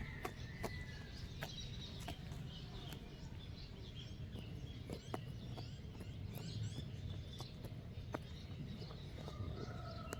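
Small birds chirping and warbling throughout, over a lamb grazing close by: scattered sharp clicks of grass being cropped and chewed. A steady low rumble sits underneath.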